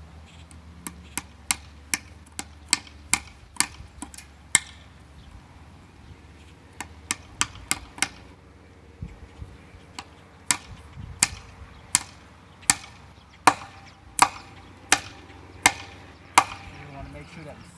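Hammer striking fence tacks into a wooden fence post to fix welded wire fence. The strikes come in three runs: a quick run of light taps, a short run of four, then a slower run of about nine heavier, louder blows.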